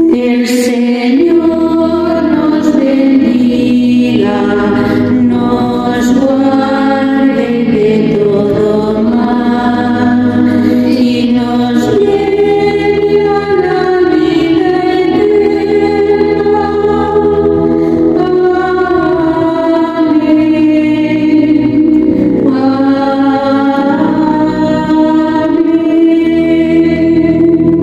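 A choir of nuns sings slowly with sustained keyboard accompaniment, held chords underneath the voices.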